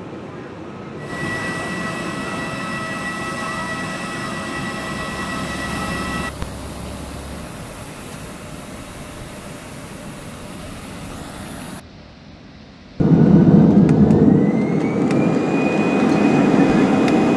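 Jet airliner engines in a run of short edited clips: first a Boeing 737's engines with a steady roar and several whistling tones, then a thinner hiss with one high steady whistle, and near the end the loudest part, a heavy rumble with a whine that rises in pitch and then holds, as a Boeing 787's engines spool up.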